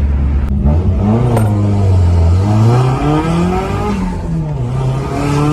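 Nissan S14 Silvia's turbocharged SR20 four-cylinder accelerating hard, its pitch rising for about three seconds, dropping at a gear change about four seconds in, then climbing again.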